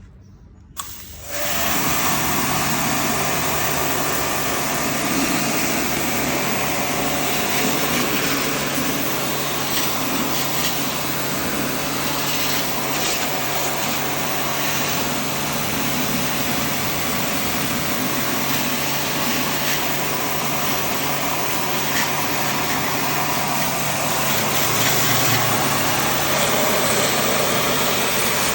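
Electric pressure washer starting suddenly about a second in and running steadily: a motor hum under the hiss of the water jet, washing a window air conditioner's dirt-clogged condenser.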